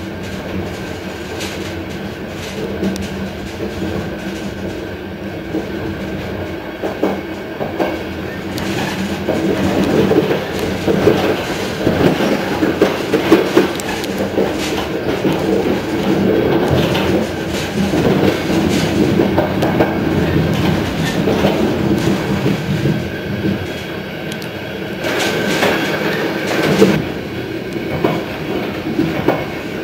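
Train running from inside its front end, with a steady running hum. The wheels clatter over the points and rail joints, busiest in the middle stretch and again briefly near the end.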